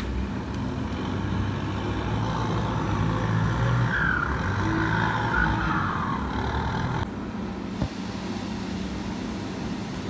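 Farm tractor engine running steadily as its front loader works, mixed with gusty storm wind rushing across the microphone. The wind noise drops off abruptly about seven seconds in, and there is one short knock soon after.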